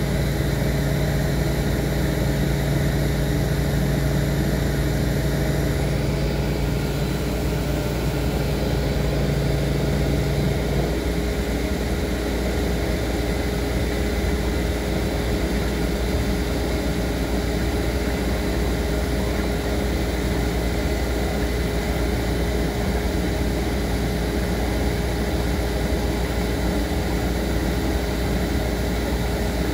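A running machine gives a steady hum with several held tones over a constant noise. A lower hum drops out about eleven seconds in.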